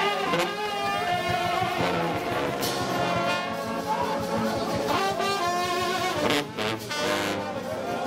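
A trombone-led gospel shout band playing: a mass of trombones with sousaphone bass and trumpets, sustained chords with sliding notes.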